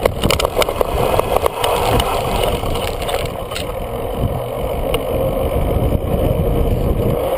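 Mountain bike descending at speed, with wind buffeting the microphone and knobby tyres rumbling. In the first couple of seconds the bike and camera rattle and knock over the rough leaf-covered trail, then the noise turns steadier as the tyres roll onto asphalt.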